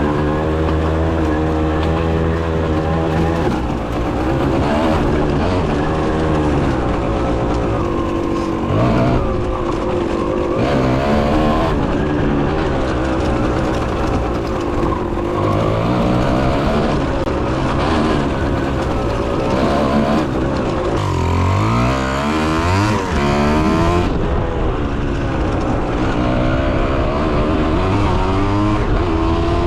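Kawasaki KX 125 single-cylinder two-stroke dirt bike engine being ridden, revving up and down through the gears, its pitch rising and falling again and again, with a sharp climb in revs a little past two-thirds of the way in.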